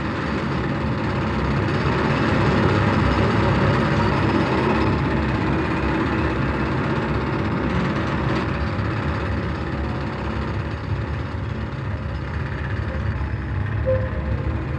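Steady rumble and clatter of tunnelling machinery, with conveyors carrying excavated clay back from the tunnel shield.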